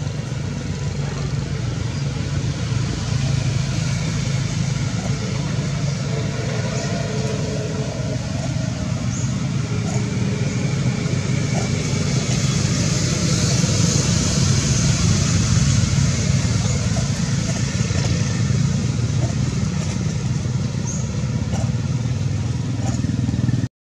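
A steady low mechanical drone, like an engine running, with a hiss over it and no clear breaks.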